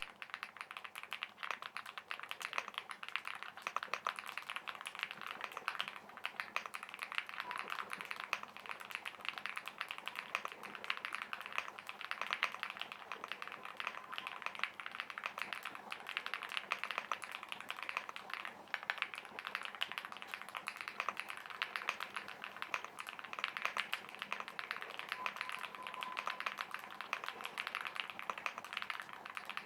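Fast, continuous typing on a MechLands Blade aluminium, gasket-mounted mechanical keyboard, a dense run of key clicks.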